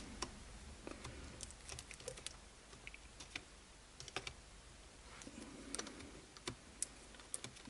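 Faint, scattered clicks and taps of small plastic and metal parts being handled as a shock absorber's rod end is worked onto its mounting ball on an RC buggy chassis.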